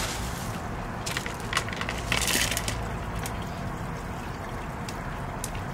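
Expanded clay pebbles (hydroton) poured by hand into a plastic net pot around a plant's roots, rattling and clattering in a few short spells, the busiest about two seconds in, with a low steady rumble underneath.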